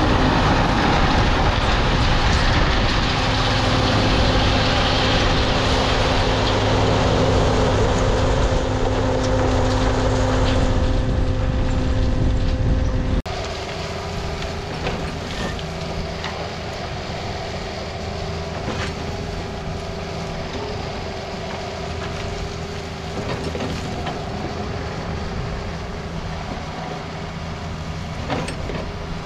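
Diesel dump truck running with its bed raised as a load of gravel pours out in a steady rushing slide that thins out after about ten seconds. The sound cuts abruptly to a Takeuchi TB260 mini excavator's engine running steadily as it works the gravel pile, with a few sharp knocks from the bucket.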